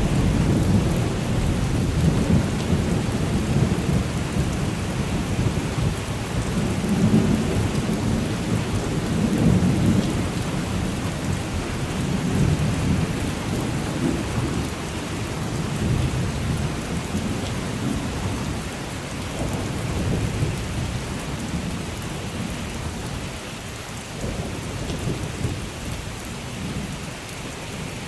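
Thunderstorm: steady rain with a long low rumble of thunder that swells and ebbs, slowly fading away toward the end.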